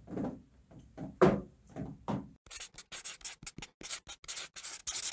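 Pen scratching across paper in quick, short strokes, a handwriting sound effect, starting about halfway in and cutting off abruptly at the end. A few soft knocks or taps come before it.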